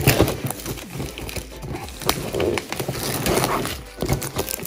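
A Pokémon Elite Trainer Box being opened by hand: its cardboard and wrapping rustle and scrape in irregular bursts, with many small clicks and knocks.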